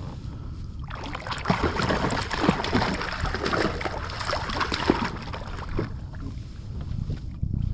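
A hooked fish thrashing and splashing at the water's surface beside a kayak, starting about a second in and dying down after about five seconds, over a steady low rumble.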